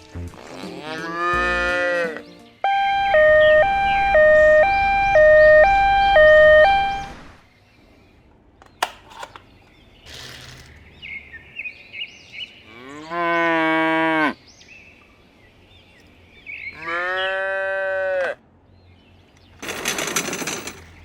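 Cow mooing three times, each a long drawn-out call bending in pitch. The loudest sound is a hi-lo siren that sounds after the first moo, alternating between two tones for about four seconds. A short noisy burst comes near the end.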